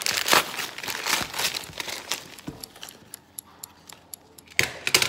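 Christmas wrapping paper crinkling and tearing as a small present is unwrapped by hand, in quick rustling bursts that thin out after about two and a half seconds. One louder sudden noise comes near the end.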